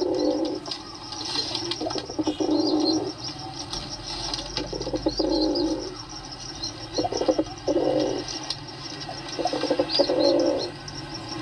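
Pigeons cooing: low, throaty coo phrases repeating every couple of seconds, with small birds chirping faintly above them.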